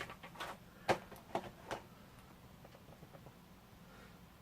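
Small plastic parts of a PVC figure being handled: a few light clicks and taps, mostly in the first two seconds, as the detachable hair and face pieces are worked.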